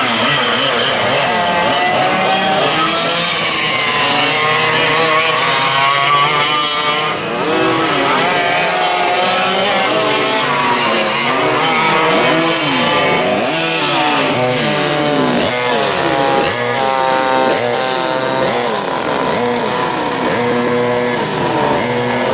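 Several vintage racing kart engines at high revs, their pitch rising and falling over and over as the karts accelerate, brake and pass one another.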